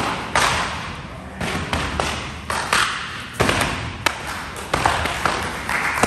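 Jiu-jitsu belts lashing a student's back and gi as he runs a belt-whipping gauntlet: an irregular series of sharp smacks, about two a second.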